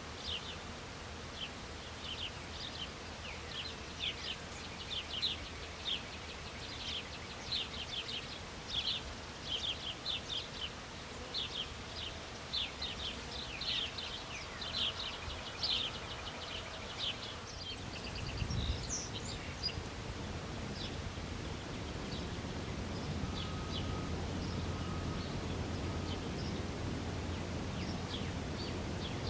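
Backyard songbirds giving many short, quick chirps in a busy cluster. About two-thirds of the way in a steady low rumble sets in, and the chirps become sparse.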